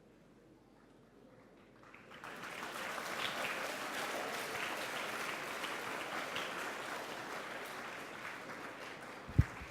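Audience applauding, starting about two seconds in and tapering off near the end. A single low thump comes just before the end.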